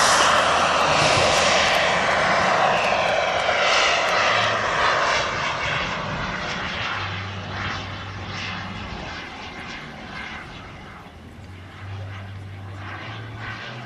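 Turbine jet engines of a large radio-controlled Concorde model running at high power as it pulls up and climbs away. The jet noise fades steadily as it goes.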